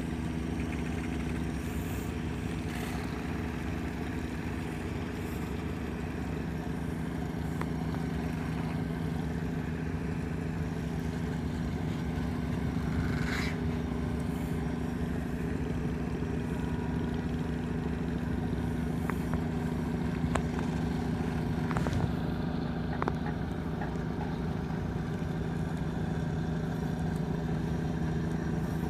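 Steady, even drone of a ferry's engines, with a few faint knocks along the way.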